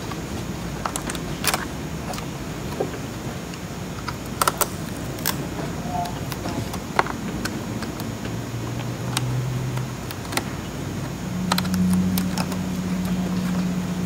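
Scattered small clicks and taps of a screwdriver tip and fingertips on the ribbon-cable connectors and circuit board inside a Panasonic Toughbook CF-30 laptop, as the ribbon cables are worked loose. Under them is a low steady hum that grows louder near the end.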